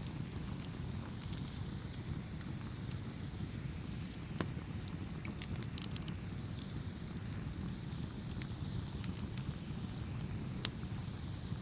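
Wood fire burning: a steady low rumble of flames with scattered sharp crackles and pops, the loudest pop near the end.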